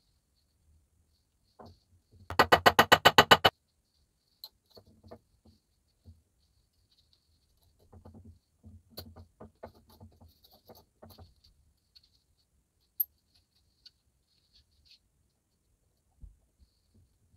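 Workshop handling sounds: a rapid run of about a dozen loud, sharp clicks lasting about a second, followed by scattered light taps and clicks and one sharp click near the end.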